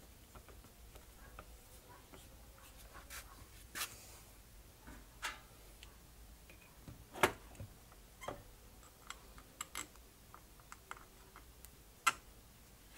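Scattered light clicks and taps of small metal carburetor parts and tools being handled and set down during reassembly of a one-barrel carburetor. The sharpest taps come about seven seconds in and again near the end.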